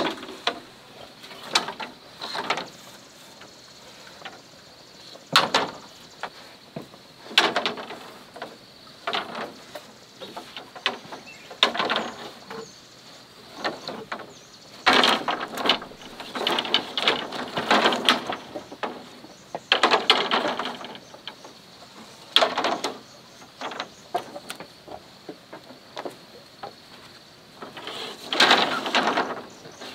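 Bamboo slats and poles knocking, rattling and creaking against a bamboo roof frame as they are handled and laid in place, in irregular clusters with short pauses.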